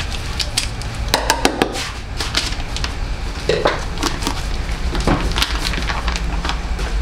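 Kitchen utensils and a mixing bowl clattering: irregular short knocks and clicks as flour is added to the bowl, over a steady low hum.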